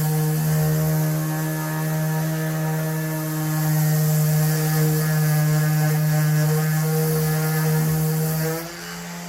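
DeWalt DCW210N 18V brushless 125 mm random orbital sander running with a steady, pitched hum. About a second before the end it drops sharply in level.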